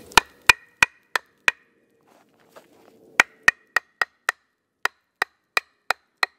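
Baton striking the spine of a knife, driving the blade into the end of a green wooden stick to split it: sharp, ringing taps about three a second, a short run of five, a pause, then about ten more.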